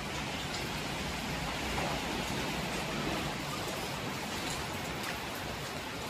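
Rain falling in a night storm: a steady hiss with a few faint ticks of drops striking surfaces.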